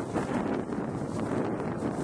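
Wind buffeting the camcorder microphone: a steady, rumbling noise.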